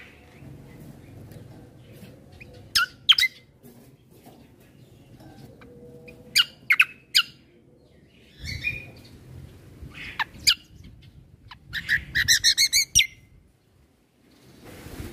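A kecial kombo (cucak kombo) songbird calling in short, sharp, high chirps spaced a few seconds apart, then a quick run of about six repeated notes near the end.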